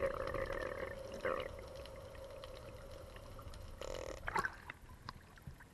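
Muffled underwater sound picked up by a diving action camera as the freediver rises toward the surface: a faint steady hum that fades, broken by a few short gurgling, bubbly bursts, the loudest about four seconds in.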